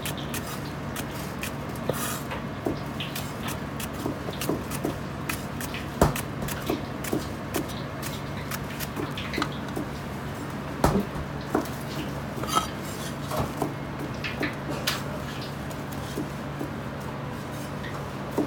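Chinese cleaver knocking and tapping on a plastic cutting board while long onion is cut on the bias and the pieces are handled, irregular knocks and clicks with two louder ones, over a steady low hum.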